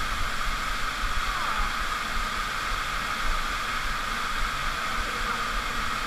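Underground cave waterfall rushing steadily.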